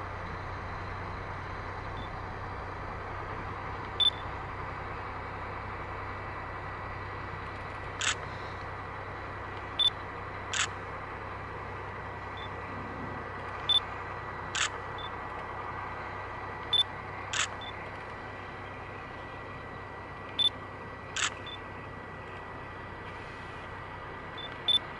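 Camera shutter clicking about a dozen times, mostly in pairs under a second apart every few seconds, over a steady electrical hum from parked electric locomotives.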